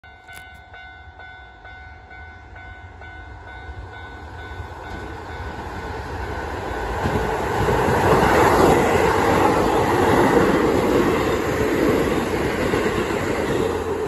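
Japanese level-crossing alarm ringing with steady repeating electronic tones, then a Keisei 3500-series electric commuter train approaching and passing over the crossing. Its running noise grows loud about eight to twelve seconds in and eases off near the end, covering the alarm.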